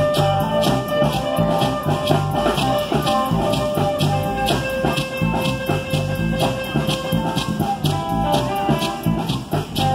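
Live band music over a PA: a flute melody with acoustic guitar and bass, and a beaded gourd shaker (shekere) keeping a steady rhythm of sharp rattling strokes.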